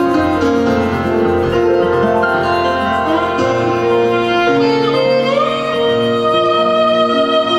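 Instrumental Bengali song introduction: a violin plays the melody over a harmonium's held chords and a plucked guitar. A note slides upward about five seconds in.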